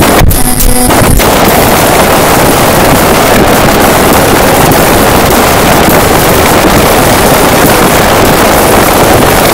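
A song amplified into extreme clipping distortion, heard as a constant, harsh wall of noise in which the music is barely recognisable. The noise thins briefly under a second in.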